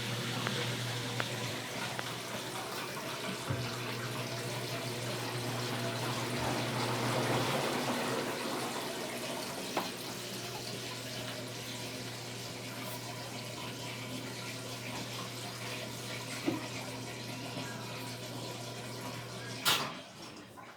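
Midea 12 kg washing machine filling with water: a steady rush of water with a constant electric hum, cutting off suddenly with a click near the end.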